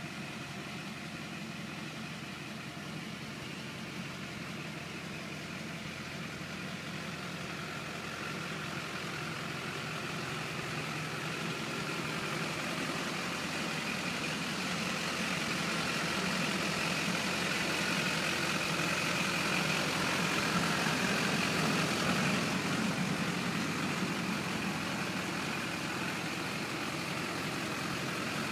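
Hummer H1's Duramax V8 turbo diesel idling steadily, with a faint whine over the diesel idle. It grows louder over the first twenty seconds or so, then eases slightly.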